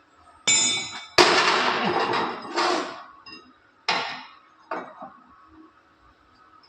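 Hammer blows on welded steel plate, chipping slag off a fresh weld bead: a ringing metallic strike, a longer scraping stretch, then three or four more separate knocks.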